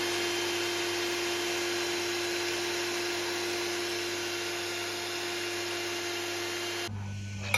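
Handheld electric milk frother whisking cream in a glass, its small motor giving a steady whine that cuts off about seven seconds in.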